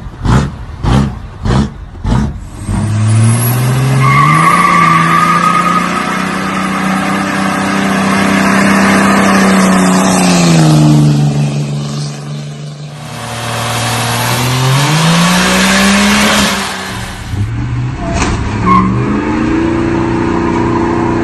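Diesel pickup doing a burnout: the engine revs up and holds high revs while the rear tires spin and squeal, eases off about ten seconds in, then revs up again. It opens with a quick run of short sharp sounds about two a second, and near the end a second pickup revs up in another burnout.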